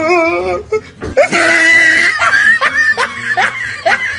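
A wavering voice, then a high shriek about a second in. The shriek breaks into a run of short rising yelps of laughter, about three or four a second.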